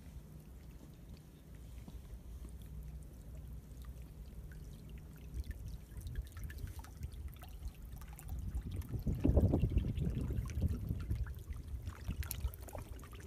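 Seawater trickling and gurgling through a rock channel in a tide pool, quiet at first, then rushing in louder from about halfway through as a surge of water flows in, loudest about two-thirds of the way in.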